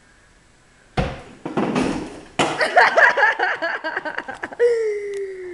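A sharp knock about a second in as a long-handled duster swats the ceiling, then rattling and a burst of shrieking and squealing, ending in one long falling wail.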